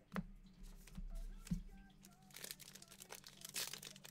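Two soft knocks in the first second and a half, then the foil wrapper of an Origins football card pack being torn open and crinkled by hand, a dense crackling that builds toward the end.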